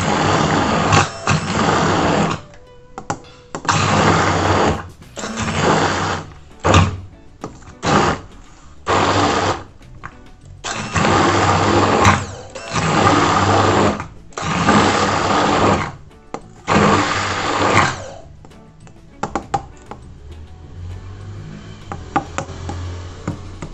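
Immersion blender (stick mixer) puréeing roasted eggplant in its beaker, switched on in about ten short bursts of half a second to two seconds each. The bursts stop about 18 seconds in, leaving only a few faint clicks.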